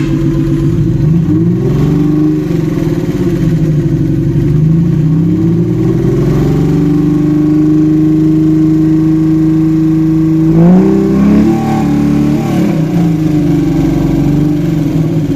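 Mitsubishi 6A12 2.0-litre V6 revved several times, once held high for several seconds before dropping back and rising again. It is misfiring, and spark plugs are the suspected cause.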